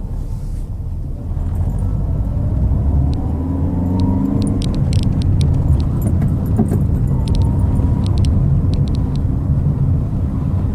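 Chevrolet Celta 1.0 driving, heard from inside the cabin: steady engine and road rumble, with the engine pitch rising about two seconds in as it picks up speed. A run of sharp clicks and rattles comes through the middle.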